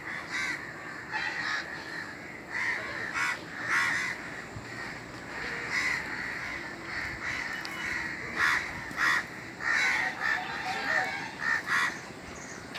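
Birds calling over and over: many short calls, several at a time, coming irregularly throughout.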